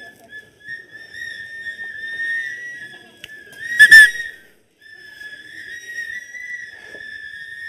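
Several 3D-printed whistles blown at once, giving a steady shrill tone of slightly differing pitches, with one much louder whistle blast about four seconds in, then a short break before the whistling resumes.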